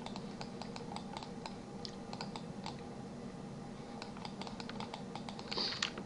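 Computer keyboard keys clicking irregularly over a steady low electrical hum, with a short hiss near the end.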